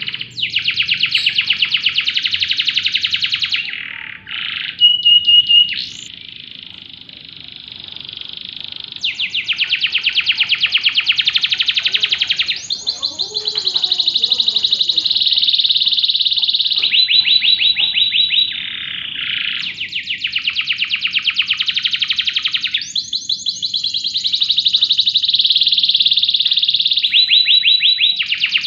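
Domestic canary singing a long, unbroken song of rapid trills and rolls, switching to a new trill every few seconds, with a short steady whistled note about five seconds in.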